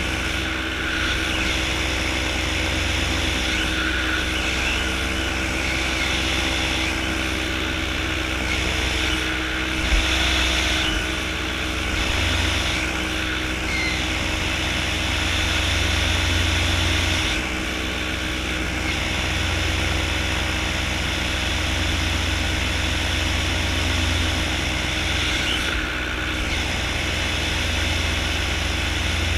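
Powered paraglider in flight: steady wind rush on the microphone, with an unchanging drone from the paramotor's engine and propeller beneath it.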